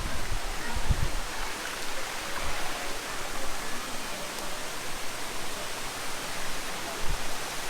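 Steady rush of water from a small waterfall and stream at natural pools, an even hiss, with a few low bumps at the microphone around the start and again about seven seconds in.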